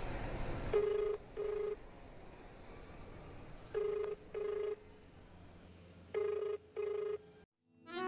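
Telephone ringback tone: three pairs of short, steady beeps, a pair every two and a half to three seconds, the sign that the dialled phone is ringing at the other end.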